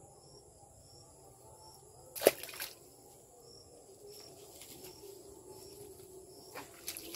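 Pond-side ambience with a steady high insect buzz and a faint chirp repeating about every half second. A single sharp crack comes a little over two seconds in, the loudest sound. Near the end there are soft clicks and light splashing as hands go into the water.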